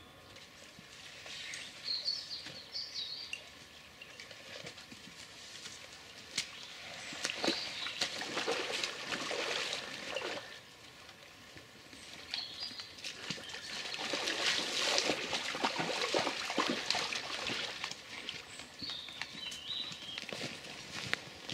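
Splashing and sloshing as a person and dogs wade through a shallow stream, in two spells, the second longer, over the stream's steady trickle. Small birds chirp now and then.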